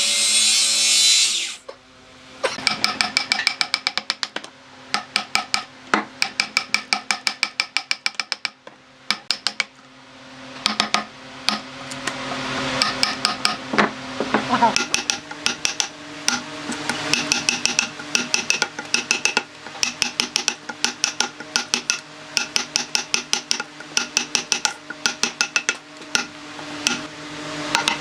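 Circular saw cutting through a log, cutting off about a second and a half in. Then a steel wood chisel is struck in quick runs of sharp taps, each with a ringing metallic tone, chopping out a notch in the log.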